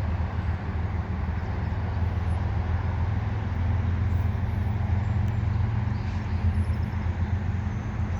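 A steady low engine hum, like a diesel engine running, with a faint noisy wash above it.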